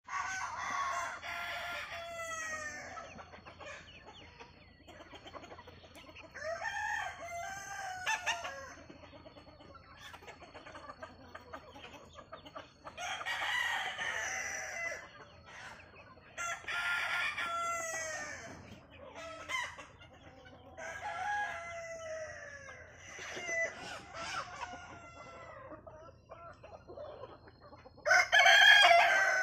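A flock of desi chickens: roosters crow several times over scattered hen clucking, and the loudest crow comes near the end.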